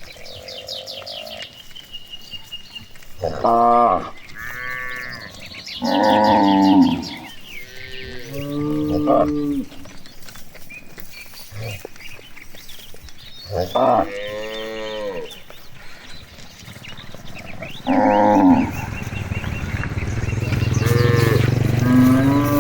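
Cattle mooing over and over, about seven separate calls, some deep and some higher-pitched, with short pauses between them.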